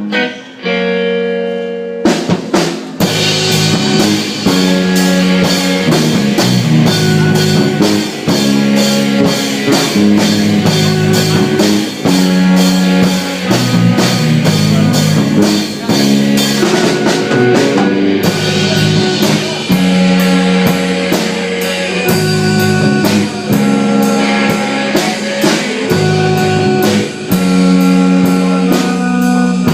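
Rock band playing live, an instrumental passage with drum kit and electric guitar. A held chord rings for the first couple of seconds before the drums and full band come back in, then play on with a steady, driving beat.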